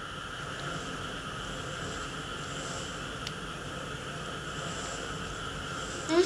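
Steady background hiss with no distinct events apart from one faint click about three seconds in; a wavering voice-like sound starts right at the end.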